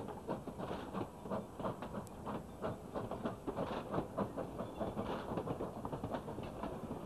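Open-sided passenger cars of a steam train rolling past close by, their wheels clattering over the track in a dense, uneven stream of knocks.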